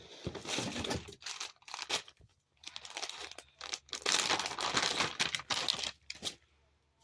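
Packaging being crinkled and torn open by hand, in irregular rustling bursts that are loudest in the second half.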